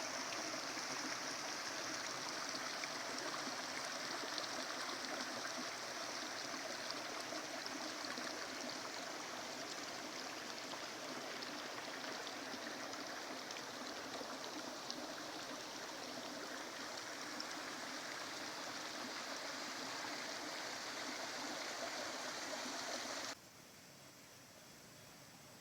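Water flowing steadily in a small stream or channel, a continuous rushing and splashing that cuts off abruptly near the end, leaving only a faint hiss.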